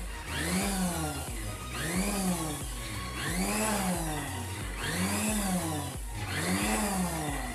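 Sujata mixer grinder's motor pulsed on and off about five times, a second and a half apart, each pulse a whine that rises and falls. It is whipping egg white, oil and lemon juice into mayonnaise, which thickens with each pulse.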